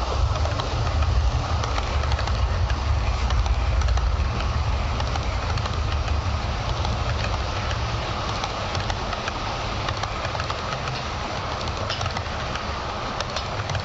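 H0-scale model electric train running past on the layout: a steady low motor hum and wheel rumble with faint clicks from the track, loudest in the first few seconds as the locomotive passes, then easing a little as the coaches roll by.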